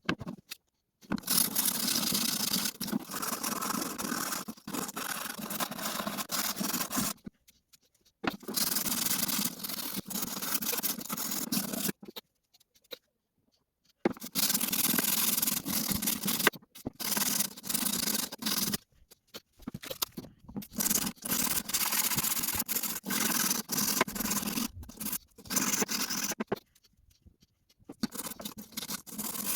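Rusty steel of garden shears being rubbed by hand with an abrasive: a dry scraping rub in stretches of several seconds, with short pauses between.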